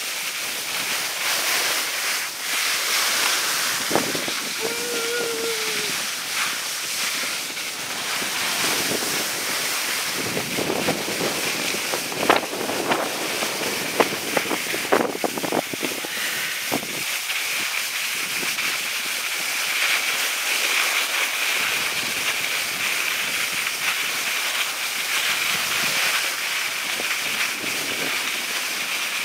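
Skis sliding over groomed snow, a steady hiss mixed with wind on the microphone. A few sharp knocks come between about twelve and sixteen seconds in.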